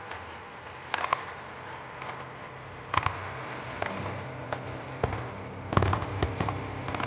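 Fireworks shells bursting in scattered sharp bangs: a pair about a second in, another around three seconds, and a quick cluster near the end, over a steady low background rumble.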